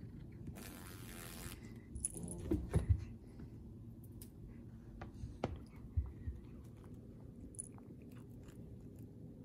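Cat biting and chewing a crunchy dragonfly, with a run of loud crunches about two to three seconds in and a few more around five to six seconds in.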